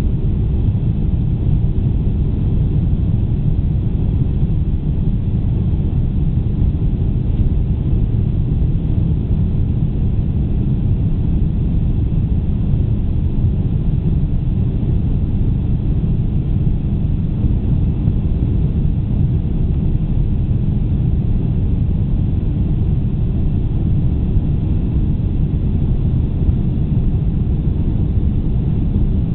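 Boeing 747-400 airliner heard from inside the passenger cabin while climbing after takeoff: a loud, steady, low rumble of engines and airflow that does not change.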